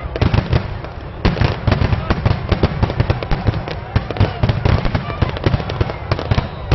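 Aerial fireworks going off in a rapid barrage: dense bursts and crackles, several a second, over low booms, getting louder about a second in.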